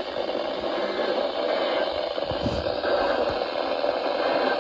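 Steady static hiss from a weather radio receiver, with a few low thumps near the middle.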